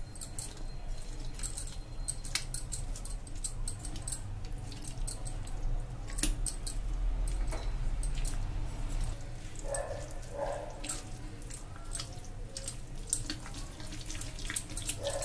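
Thick semolina (suji) batter being stirred and scraped with a spatula in a glass bowl while water is poured in a little at a time. Bangles on the stirring wrist clink and jingle in quick, irregular clicks throughout, over a low steady hum.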